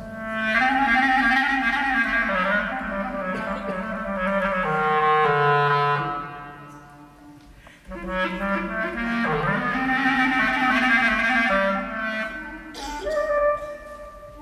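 Klezmer clarinet playing a melody in two long phrases, with a drop in loudness between them about halfway through.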